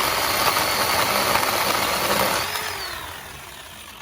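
Ryobi One+ 18V 10-inch cordless chainsaw running with a steady electric whine while the chain cuts through a branch about 2 inches thick. A little over two seconds in, the whine lifts briefly, then falls away as the motor spins down.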